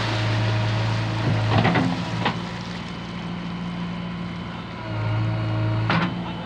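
JCB 3DX backhoe loader's diesel engine running under hydraulic load as the backhoe arm works in wet clay. The engine note drops about two seconds in and picks up again near the end. Several sharp knocks come from the arm and bucket: a cluster about a second and a half in, another just after, and one near the end.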